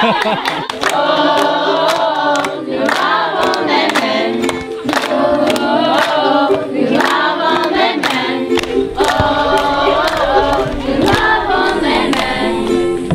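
A group of children singing a song together in unison, with a regular clapped beat running under it.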